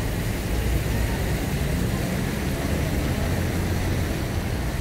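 Steady low rumble of city street traffic, with no single vehicle or voice standing out.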